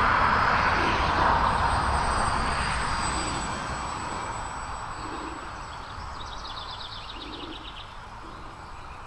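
Micro Draco RC plane's electric motor and propeller whining as it flies, fading steadily as the plane moves away. A bird trills briefly about six seconds in, and soft low coos sound in the second half.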